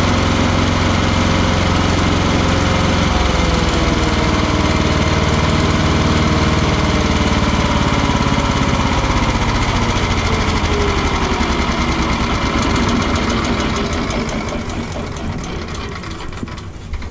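Stump grinder's petrol engine running loud and steady under power. Its pitch slowly sinks, and near the end it slows to a weaker, pulsing idle.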